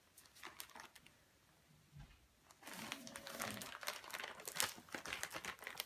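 Gift wrapping paper crinkling and rustling as the wrapped present is pressed and pulled at. A few faint crackles at first, then denser and louder crinkling from about halfway through.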